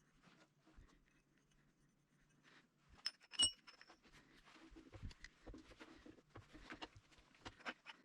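A metal object clinks sharply twice about three seconds in, the second strike ringing briefly. Light irregular clicks and knocks follow, like small parts or tools being handled.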